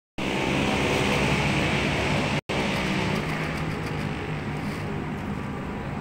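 Steady road traffic noise, with vehicle engines running close by. The sound drops out for an instant about two and a half seconds in.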